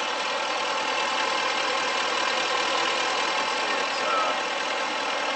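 L5P Duramax 6.6-litre V8 turbodiesel idling steadily, heard up close in the open engine bay.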